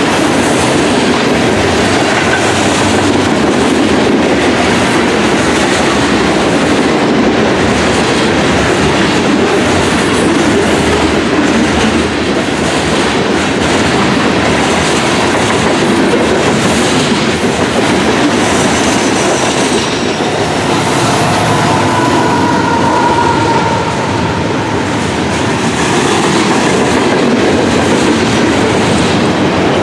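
Freight cars (covered hoppers, then autorack cars) rolling past: a steady clatter and rumble of steel wheels on the rails. A faint high wheel squeal comes in about two-thirds of the way through.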